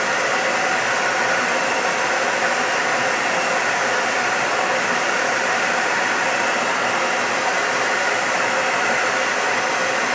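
TAIFF Fox Ion hair dryer running steadily on its newly fitted motor and heating element: a constant rush of air with a faint fan whine. The repaired dryer is working normally.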